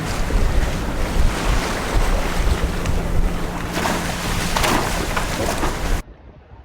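Wind buffeting the microphone over water rushing past a sailing boat under way, a loud, rumbling noise with a faint steady hum beneath it. It cuts off abruptly about six seconds in.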